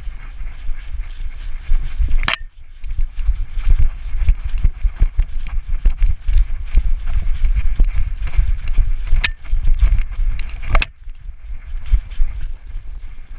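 A dog galloping flat-out through dry leaf litter, heard from a GoPro strapped on its back: a fast, rhythmic run of low thumps from its strides, with leaves crunching. Two sharper knocks stand out, about two seconds in and again late on.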